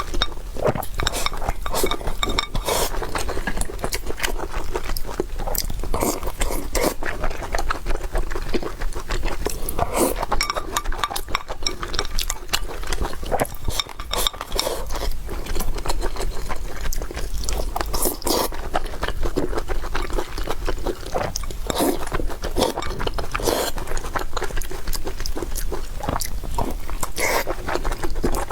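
Close-miked eating: chewing, with frequent short clicks of a utensil against a dish.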